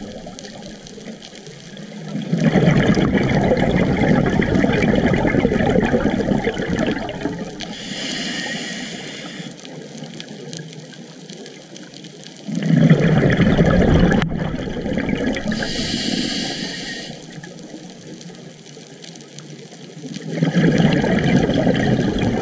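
A scuba diver breathing through a regulator underwater. Three long bubbling exhales of several seconds each alternate with a shorter, higher hiss of inhaling through the regulator, which comes twice.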